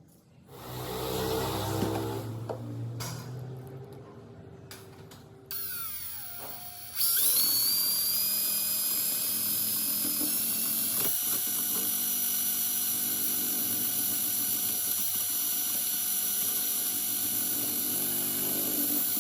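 Small electric power tool, drill-like, spinning up about seven seconds in and then running steadily with a high whine and hiss.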